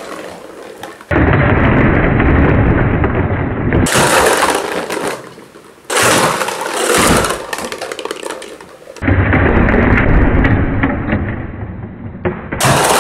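Repeated crashes and clatter of hollow plastic jack-o'-lantern buckets as a toy car smashes into them and sends them tumbling, in several loud bouts.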